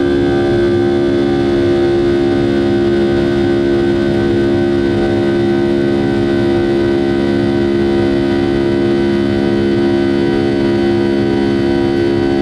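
Rolls-Royce RB211 turbofan on a Boeing 757-200 at climb power, heard from inside the cabin beside the engine. It makes a loud, steady drone of several held tones over a deep rumble.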